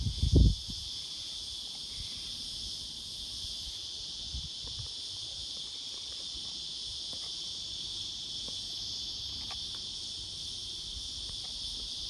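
Cicadas buzzing in one steady, unbroken high drone, with a brief low thump on the microphone in the first half second.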